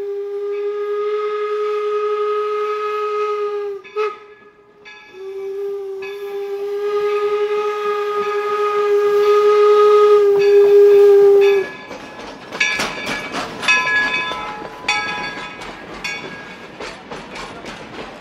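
Steam whistle of the locomotive York blowing as it approaches: a long blast, a brief toot, then a longer blast that grows louder before cutting off. After that, the train's wheels clatter and click over the rail joints as the coaches roll past.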